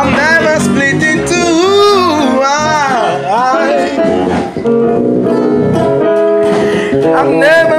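Live band music: a singing voice slides through long, winding runs over electric bass and a Nord Electro 3 keyboard. From about four seconds in, steady held keyboard chords take over, and the voice comes back near the end.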